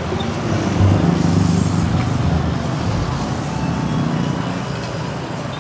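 Street traffic running past: a steady hum of motor-vehicle engines and road noise.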